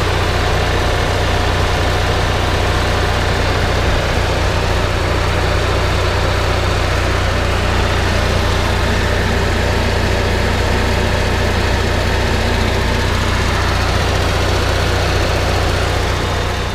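1994 Onan Cummins Emerald Plus 4000 RV generator's two-cylinder gasoline engine running steadily and loud, with a strong low hum. Freshly serviced with a new carburetor, fuel pump and circuit board, it has started and is making power.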